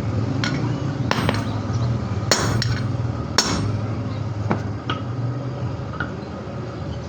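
Irregular hammer blows striking metal, about nine in all, the loudest about two and a half and three and a half seconds in, over a steady low hum.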